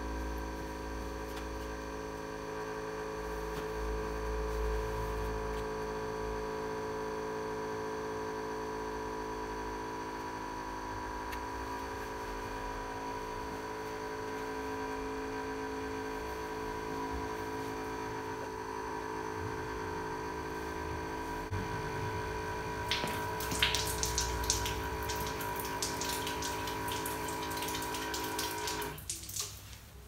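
Small electric water pump running with a steady hum as it pumps water through tubing into a panel radiator. About three-quarters of the way through, splashing and gurgling join in as the radiator fills up. The pump stops about a second before the end.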